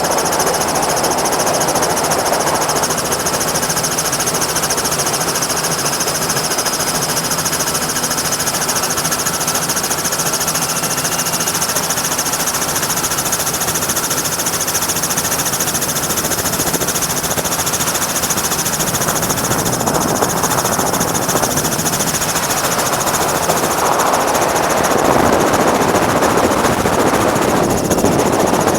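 Helicopter in flight, heard from on board: a loud, steady, dense mechanical noise with a thin steady whine on top.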